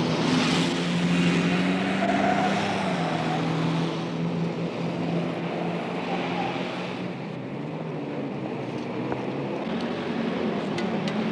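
Heavy road traffic: a continuous rush of passing vehicles with a low engine hum, louder in the first half, easing off for a few seconds past the middle and building again near the end.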